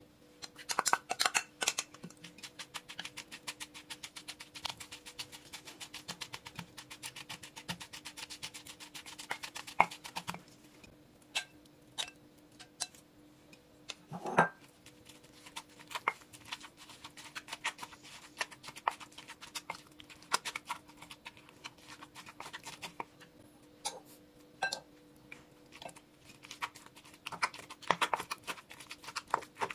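Wooden pestle pounding in a clay mortar: quick, steady knocks at first, then slower and sparser with one louder thump about halfway through. The pounding picks up again as soft boiled eggplant is mashed into the chilli paste.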